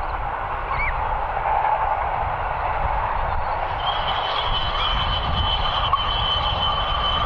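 A steam-hauled train running, a steady rumble and rush of noise. About four seconds in, a steady high tone sets in and holds, with a few faint bird chirps in the first second.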